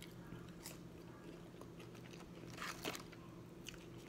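A person biting and chewing French fries close to the microphone, with a few short soft crunches, the clearest cluster about two and a half seconds in.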